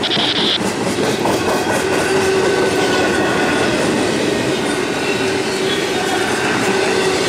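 CSX intermodal freight train rolling past at track speed, its wheels clacking over the rail joints under a steady, loud rumble, with a faint steady wheel tone.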